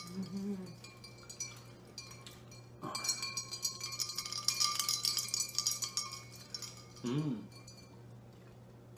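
Drinking glasses clinked together in a toast about three seconds in, the glass ringing on for about three seconds under a quick patter of small clinks. A short vocal hum just after seven seconds.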